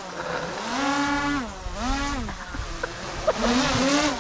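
Small quadcopter drone hovering just above a raised hand, its propellers whining and repeatedly rising and falling in pitch as the motors speed up and slow down to hold position.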